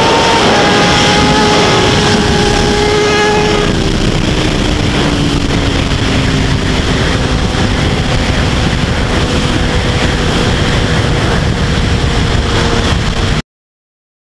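Kawasaki sport bike's inline-four engine pulling at high, steady revs under heavy wind rush on the rider's microphone, then rolling off with the engine note slowly falling in pitch for several seconds. The sound cuts off abruptly near the end.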